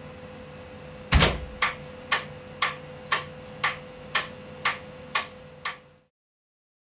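Electric lock on a relay-controlled door releasing: one loud clunk about a second in, then nine sharp clicks about two a second, before the sound cuts off suddenly.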